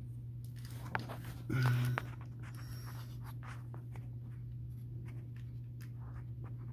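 Light clicks, taps and rubbing of a plastic refrigerator defrost drain hose being handled and pushed onto its fitting, over a steady low hum. A brief grunt comes about one and a half seconds in.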